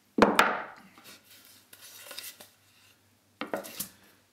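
Two sharp wooden knocks about a quarter of a second in, then light rubbing and handling of plywood. Near the end comes a short cluster of knocks and scrapes as a plywood gusset is laid flat and slid against a plywood joist on a plywood workbench.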